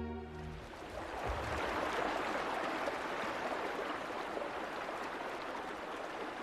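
Shallow mountain brook running over rocks and stones, a steady babbling hiss of water.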